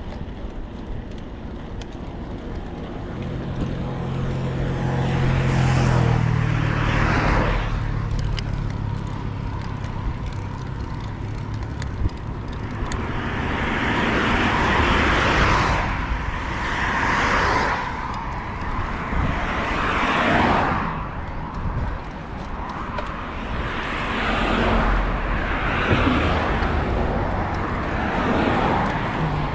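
Road traffic: cars passing close by one after another, each swelling up and fading away. About five seconds in, one vehicle's engine hum rises and drops in pitch as it goes past.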